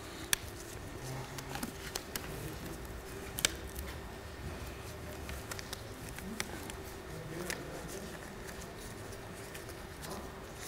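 Disposable gloves being pulled on and worked onto the hands: faint rubbing and stretching with a few sharp snaps, over a low steady hum.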